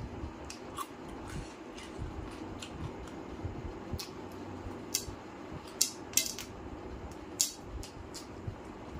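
Close-up eating by hand from a steel plate of chicken curry and roti: chewing and mouth smacks with short, sharp clicks and clinks, the loudest four a little past the middle.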